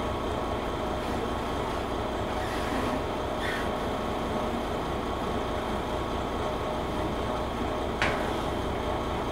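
A steady engine drone with a constant hum, and one sharp click about eight seconds in.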